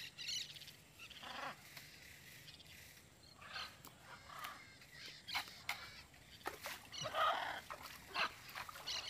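Faint, scattered animal calls, several short ones and a louder one about seven seconds in.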